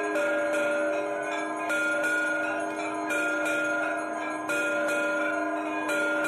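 Temple bells rung for the aarti: a bell struck about every second and a half, each strike ringing on into the next, with a high jangle over it.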